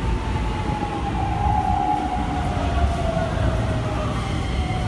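Keikyu New 1000 series 1800-subseries electric train pulling into a platform. Its Toyo Denki IGBT VVVF inverter and traction motors give a whine that falls steadily in pitch as the train brakes, over the low rumble of wheels on rail.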